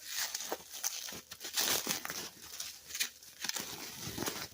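Crinkly packaging wrapping being crumpled and pulled open by hand, an irregular crackling with some tearing.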